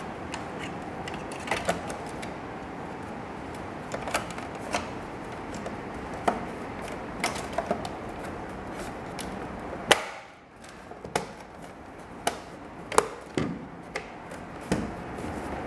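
Hard plastic side-mirror frame and housing clicking and knocking as they are handled, a dozen or so irregular sharp taps over a steady hiss.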